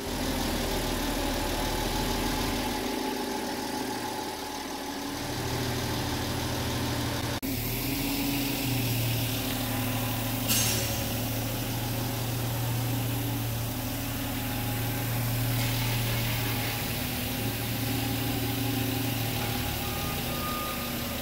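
Propane forklift's engine running steadily as it drives across a concrete floor. A short steady tone sounds near the end.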